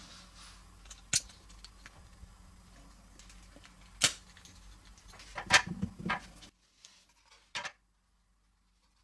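Plastic toy parts being handled on a table, with a few sharp clicks as a rubber tyre is pressed onto a plastic wheel hub: single clicks about a second in and about four seconds in, then a quick run of clicks and rattling a little later.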